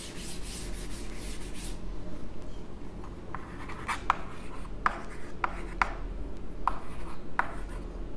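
Chalk on a blackboard: a brief rubbing as part of the board is wiped clear, then a run of short, sharp chalk strokes and taps as digits are written.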